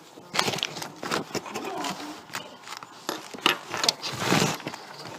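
Irregular clicks and scraping from a small screwdriver and laptop parts being handled while screws are driven into the laptop screen's mounting, with a longer scraping noise about four seconds in.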